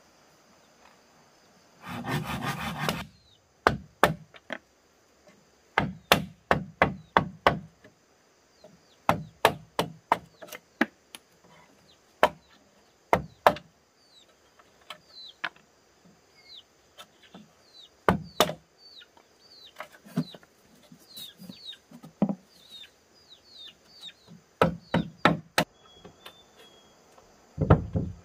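Bamboo being chopped and knocked: groups of sharp wooden strikes in quick runs, with a dense second-long rattle about two seconds in.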